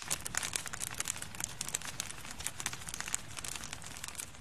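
Log fire crackling, with a dense run of small quick snaps and pops and one sharp pop right at the start.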